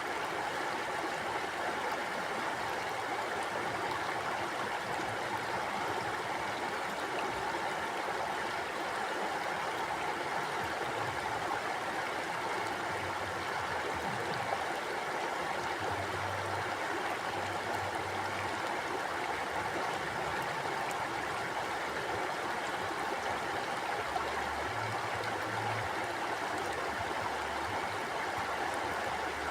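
Mountain stream flowing over rocks: a steady rush of running water.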